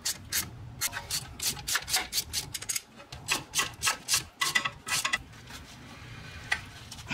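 Hand ratchet worked back and forth on the drive shaft bolts, a quick run of short rasping strokes about three or four a second, with the brake rotor held by a wedged screwdriver. The strokes stop about five seconds in, leaving a lone tick or two.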